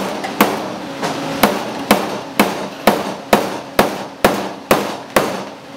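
Hammer blows on a steel car hood panel, hammering in a dent. About eleven evenly paced strikes come roughly two a second, each with a short metallic ring.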